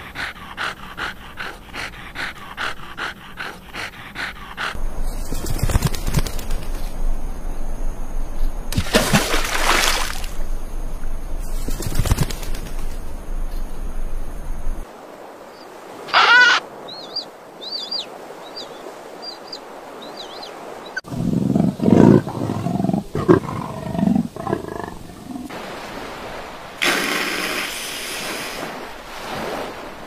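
A series of different animal calls, one after another: fast, even pulses at first, then a deep rumbling stretch with several loud swells, then a gliding call followed by short, high chirps, and low bursts near the end.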